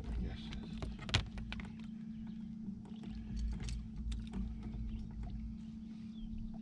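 Sounds aboard a small fishing boat drifting on calm water: a steady low hum and rumble with scattered light clicks and knocks of fishing gear being handled.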